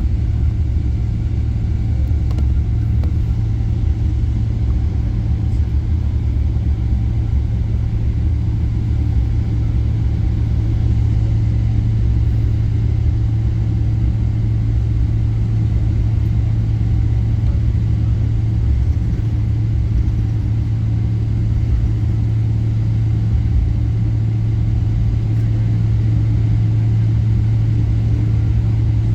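Airliner noise: a steady low rumble with a strong low hum, holding an even level throughout.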